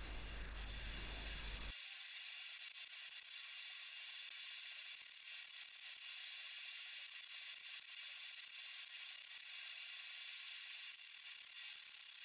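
A steady faint hiss with faint, irregular ticking through it.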